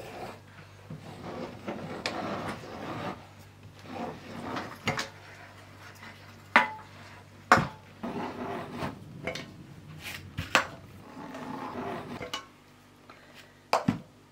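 Hand-cranked lid seamer scraping round as it rolls a tin lid onto a glass jar, followed by glass jars being handled and set down with a series of sharp knocks and clinks, the loudest two about halfway through.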